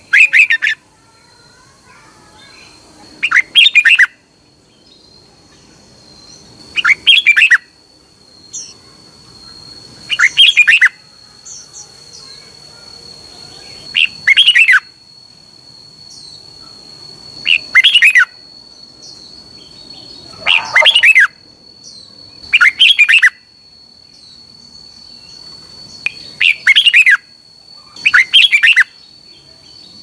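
Red-whiskered bulbul singing short, loud, warbled phrases, about ten of them, one every three seconds or so, each lasting under a second. A faint steady high-pitched whine runs underneath.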